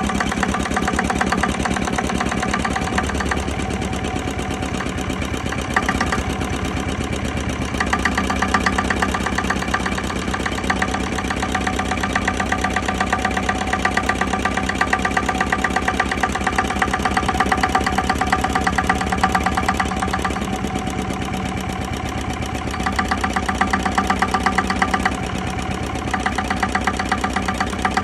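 1943 Witte Dieselectric plant's 4 hp single-cylinder diesel engine running with a fast, even diesel knock. The knock comes sharper and louder for stretches and eases off in between.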